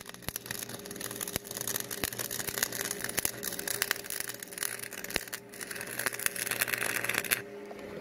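Stick (arc) welding: the electrode arc crackles and sputters steadily, with sharp pops, then cuts off near the end. A steady electrical hum carries on under it.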